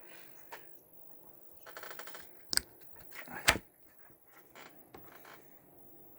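Handling noises: a quick run of light ticks, then two sharp knocks about a second apart, the second the louder.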